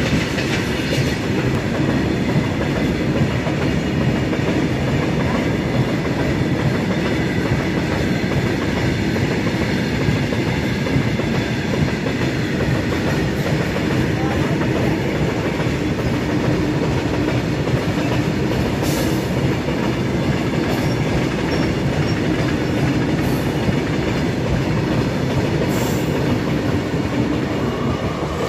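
Long freight train of open-top steel wagons rolling past close by: a steady loud rumble of wheels on rail, with a few sharp clanks.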